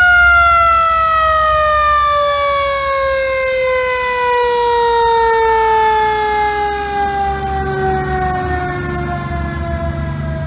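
Vintage fire engine's siren sounding one long, loud wail that slowly falls in pitch, over the low rumble of passing vehicles.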